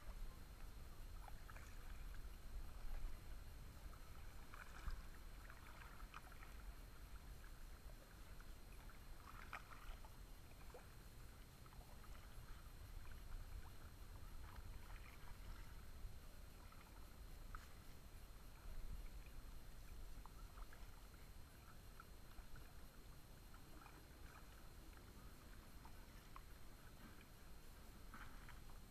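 Faint sounds of a sit-on-top kayak being paddled: paddle dips and water lapping at the hull, with a steady low rumble underneath.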